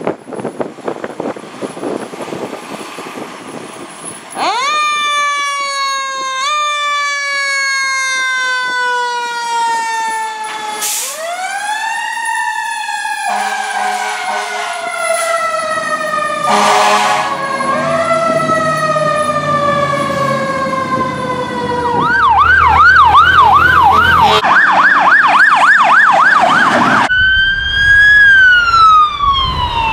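Fire engine sirens over a running truck engine: about four seconds in a siren winds up and then slowly falls in pitch, winds up again and falls, with horn blasts partway through. Later a fast warbling yelp siren cuts in.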